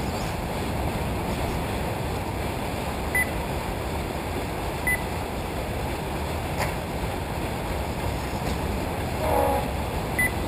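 Steady rumbling outdoor noise, with three short high beeps from a race lap-timing system as RC cars cross the timing line, about three, five and ten seconds in.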